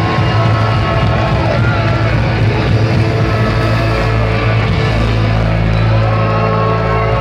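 Live rock band playing loudly, with steady bass and sustained guitar and vocal tones.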